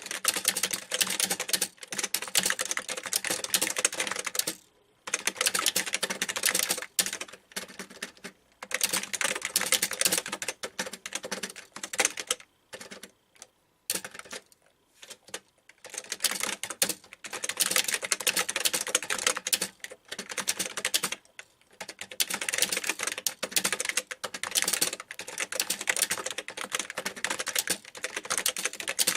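Typing on a Packard Bell computer keyboard: rapid runs of key clicks in bursts of a few seconds, broken by short pauses, including a longer gap about halfway through.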